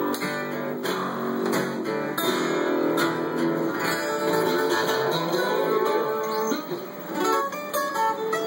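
Acoustic guitars strummed together in an instrumental passage of a southern-rock jam, with no singing. Near the end the strumming thins briefly and single picked notes ring out above it.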